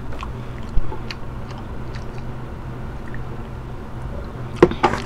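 Chewing food, with faint small clicks over a low steady hum and a single knock about a second in. Near the end come a few sharp clicks and knocks as an aluminium soda can is raised and drunk from.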